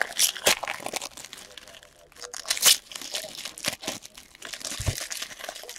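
Foil wrappers of Panini NBA Hoops trading-card packs crinkling and tearing as they are handled and ripped open, in irregular bursts, the loudest a little under three seconds in. A soft low thump comes near the end.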